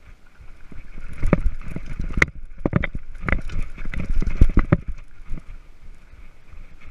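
Mountain bike rattling and clattering as it rides down a rough, rutted dirt trail: a run of knocks and thuds from about one second in to about five seconds in, over rumbling wind noise.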